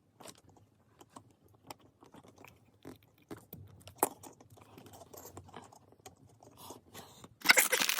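Scattered small plastic clicks and light rustling as a Lego minifigure and its parts are handled. A louder noise comes in near the end.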